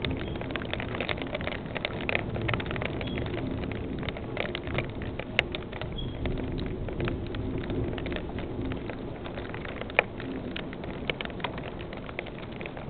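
Rain falling steadily as a hiss, with many sharp ticks of drops striking nearby surfaces; two louder ticks stand out about five and ten seconds in.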